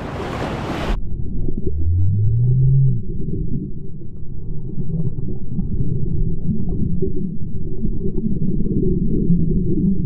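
Water splashing as a GoPro Hero 10 goes into the shallows, then about a second in the sound turns into the muffled low rumble of water heard through the submerged camera. Faint crackles run through it, and a short low tone rises just after two seconds.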